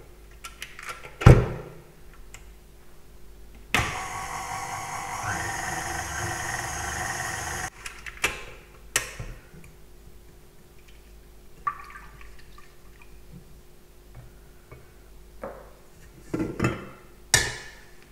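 A hard clunk as the steel mixing bowl goes onto the KitchenAid stand mixer. Then the mixer runs for about four seconds, its dough hook swishing through water, sugar, salt and yeast, and starts and stops abruptly. Faint scraping of a spatula in the bowl follows, and there is another knock near the end.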